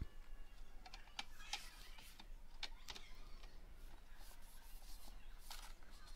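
Faint, scattered light clicks and scrapes of a metal support bar being slid and pushed into the edge of a composite plastic shed door panel.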